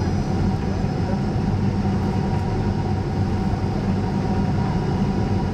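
Steady cabin noise of a Boeing 767-300 airliner on approach: a low rumble of engines and rushing air with a faint steady whine over it, heard from inside the cabin.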